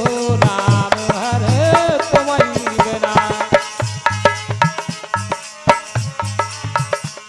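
Indian folk devotional music: drums and hand percussion keep a steady beat along with hand-clapping. A wavering melody line carries over the first three seconds or so, then drops out, leaving the drumming alone.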